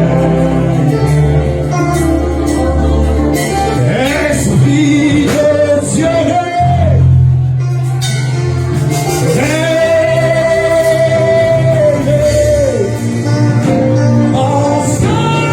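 Live gospel worship music: a singer's voice over a band with steady bass, including one long held note about two-thirds of the way in.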